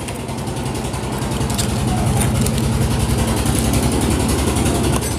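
A vehicle engine idling steadily, growing a little louder over the first second or two, with a few faint light clicks. It is not the bike under repair, whose engine is opened up with the cam sprocket being removed.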